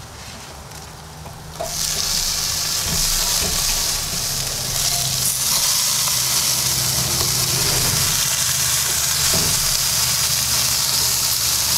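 Pork baby back ribs sizzling on the hot grate of a kamado grill as they are flipped, a steady hiss that starts suddenly about two seconds in.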